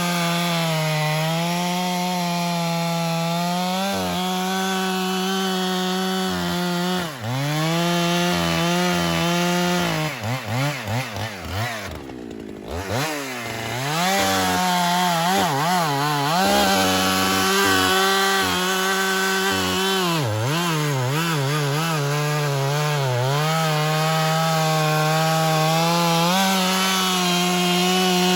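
A large professional chainsaw at full throttle bucking a log of dead, very hard gum, its engine note sagging and wavering under load. About ten seconds in, the revs fall away and the saw eases off toward idle, then it revs back up and keeps cutting.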